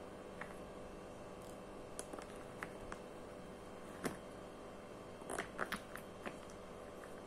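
Small plastic paint pots being handled in a clear plastic case: scattered light clicks and taps of plastic on plastic, the sharpest about four seconds in and a quick cluster around five and a half seconds, over a faint steady hum.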